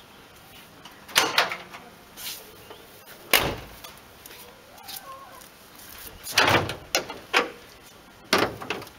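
Several clunks and clicks as a car's bonnet is unlatched and raised, the heaviest clunk about six and a half seconds in.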